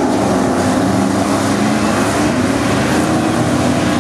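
A pack of V8 dirt-track stock cars racing, several engines running at once in a loud, steady drone.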